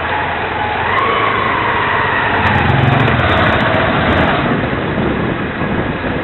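Small motor scooter engine running close by, its whine rising and falling as the throttle changes.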